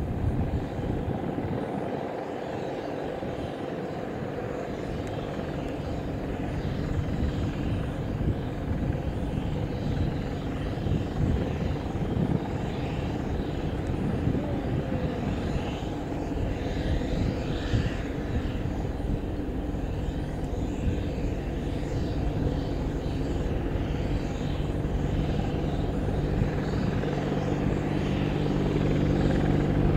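AgustaWestland Apache AH1 attack helicopter coming in low and settling into a hover to land, its twin-turboshaft engines and rotors making a steady helicopter drone. The sound grows louder toward the end as it draws near, with a steady low hum coming up in the last few seconds.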